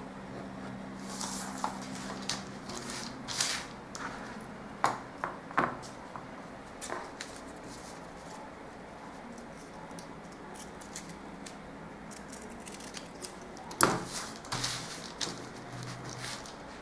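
Brown-paper pattern pieces rustling and a clear plastic ruler, pencil and tape being handled and set down on a drafting table: soft paper rustles broken by a few sharp clicks and knocks, the loudest about five seconds in and again near fourteen seconds.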